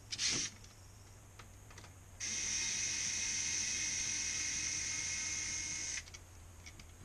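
Small cordless electric screwdriver running steadily for about four seconds with a high whine, backing a screw out of the grinder's top ring. A short knock of handling right at the start.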